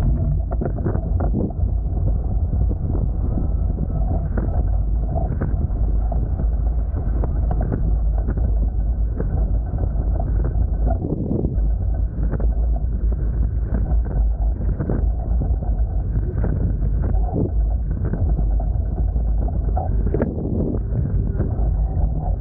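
Steady heavy wind rumble on the microphone of a Hobie Tiger F18 beach catamaran under sail, with frequent short slaps and knocks over it, a few every second.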